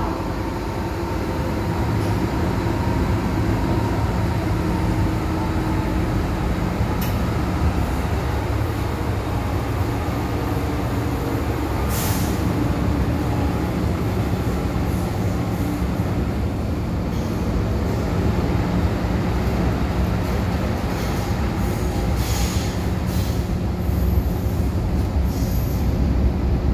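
MTR M-Train electric multiple unit running at speed through a tunnel, heard from inside the car by the door: a steady low rumble of wheels on rail, with a few sharp clicks and a brief high wheel squeal near the end.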